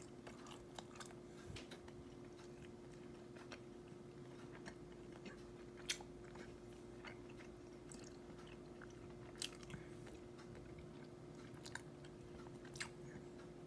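Quiet chewing and biting of a soft glazed cinnamon roll, with scattered short mouth clicks and smacks, over a faint steady hum.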